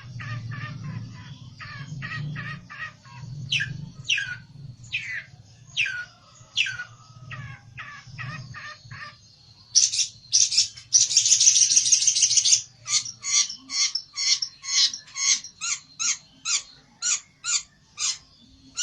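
A pelentet (a small cage songbird) calling agitatedly: short falling whistled notes, then about halfway a loud buzzy rattle lasting about two seconds, followed by a rapid string of sharp chip notes, roughly three a second. A low hum sits under the first half.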